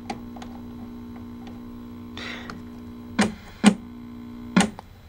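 Steady electrical mains hum from a 1972 Admiral SS 690 vacuum-tube color television set, with a few short knocks and clicks about three to four and a half seconds in.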